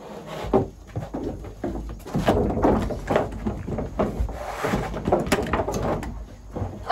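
Calves crowded in a wooden cattle chute shifting and knocking against the boards: irregular thuds, scrapes and bumps of hooves and bodies on wood.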